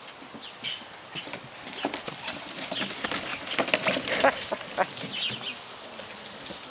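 Australian Shepherd puppies playing and scrambling on and around plastic kiddie pools: a busy patter of light knocks and scrapes, thickest through the middle, with short high squeaks mixed in.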